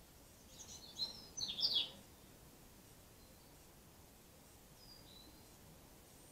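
Small bird calling: a quick run of high chirps about half a second to two seconds in, then one faint short chirp around five seconds.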